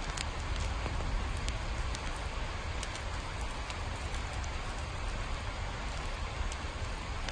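Steady rain falling, with scattered sharp drip ticks and a low, steady rumble underneath.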